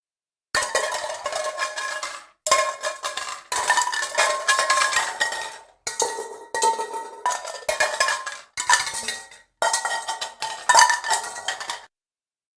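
Metal pots and pans clattering and banging together, with a ringing metallic tone behind the knocks. It comes in about six separate bursts, each starting suddenly, with brief dead silences between them.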